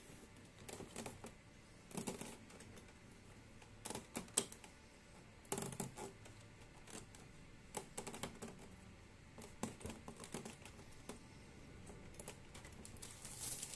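Scattered, irregular clicks and taps of a replacement HEPA filter's frame knocking and snapping against the plastic housing of a Panasonic air purifier as it is pressed into place by hand, a tight fit.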